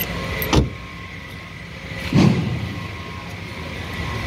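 A Tata Tiago's car door being shut, heard as two thumps: a sharp knock about half a second in and a heavier, deeper thud about a second and a half later.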